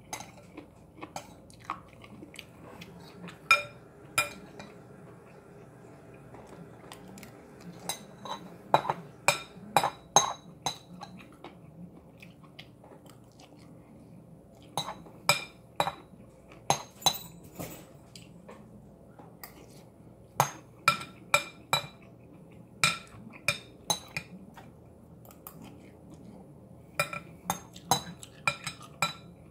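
A metal utensil clinking and scraping against a bowl in clusters of sharp, ringing taps while vegetables are scooped up, with quiet chewing between.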